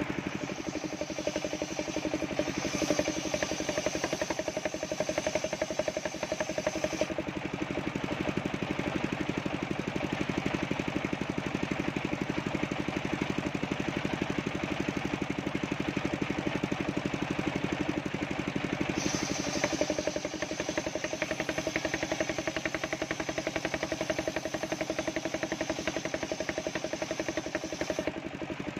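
Homemade table circular saw running steadily as its blade rips a coconut-palm log lengthwise. A high whine rides over the running for the first seven seconds or so and again through the last third.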